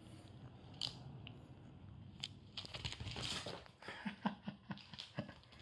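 Paper rustling and crinkling as sticker-backing papers are handled, with scattered light taps and clicks.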